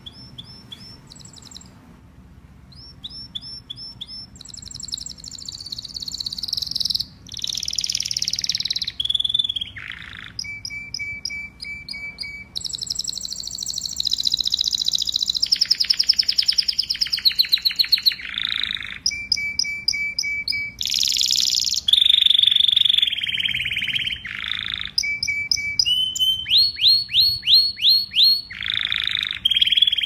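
Domestic canary in full, continuous song: a long string of varied phrases of fast trills, rolls and repeated chirps. It is quieter at first and grows louder over the first several seconds.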